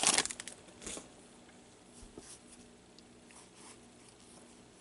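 A foil trading-card pack wrapper crinkles briefly at the start. Then come faint, scattered soft rustles and ticks as cards are handled and leafed through by gloved hands, over a faint steady hum.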